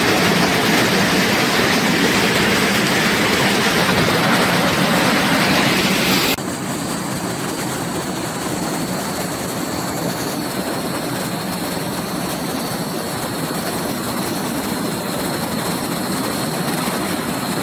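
Steady rush of falling and flowing water from a waterfall. About six seconds in it cuts abruptly to a quieter, duller rush.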